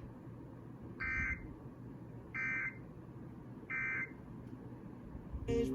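Emergency Alert System end-of-message tones: three short digital data bursts, each a fast warbling buzz between two pitches, about a second and a half apart, closing out the alert test. A louder, short sound with a low hum-like tone cuts in near the end.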